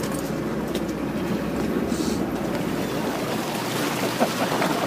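Steady low rumble of a sportfishing boat's engine running, mixed with wind and sea-water noise on deck.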